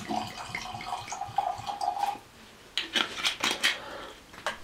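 Fortified fruit wine poured from a bottle into a wine glass: a steady pouring gurgle for about two seconds. After a short pause comes a quick run of clicks and knocks as the bottle is handled and closed.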